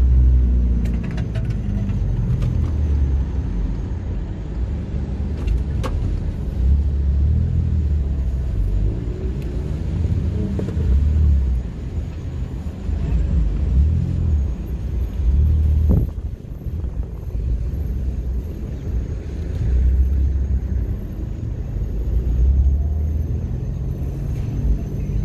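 Engine and road rumble heard inside the cabin of a Mk5 Golf GTI with its turbocharged 2.0-litre four-cylinder, swelling and easing repeatedly as the car pulls away and slows in traffic. A single sharp click about two-thirds of the way through.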